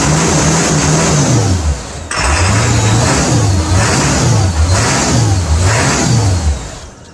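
1997 Ford F-350's 7.3 L Powerstroke turbo-diesel V8 being revved through its straight exhaust stacks: it holds high revs, drops back, then rises and falls in a string of throttle blips before dying away near the end.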